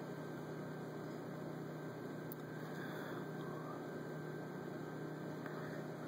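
Steady low electrical hum over faint background hiss, with no other events: room tone.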